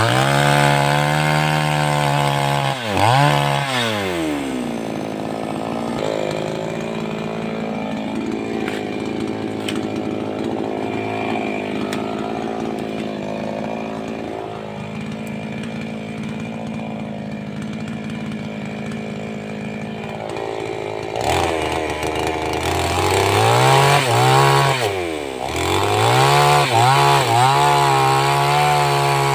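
A 588X petrol chainsaw running at high revs, then dropping to a lower, steady speed for most of the middle. About three-quarters of the way through it is revved up again, with a couple of quick dips in pitch before it holds high.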